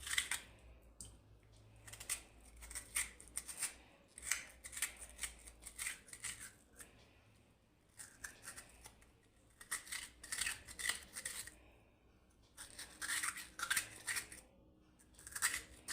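A raw purple turnip being hollowed out, its flesh scraped from the inside in runs of quick scraping strokes with short pauses between them.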